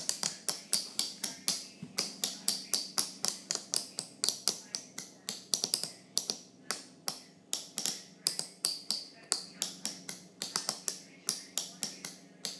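A row of small push-pull solenoids clicking as their plungers snap in and out, fired one after another by an Arduino through a MOSFET board. The sharp clicks come about three to four a second, in an uneven rhythm.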